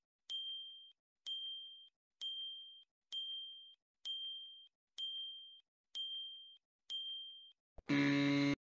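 Countdown timer sound effect: a short, high ding about once a second, eight times, as the timer ticks off the seconds. Near the end a louder, half-second buzz marks the time being up.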